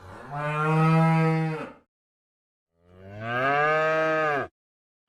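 A cow mooing twice: two long, drawn-out moos about a second apart, the second rising in pitch at its start.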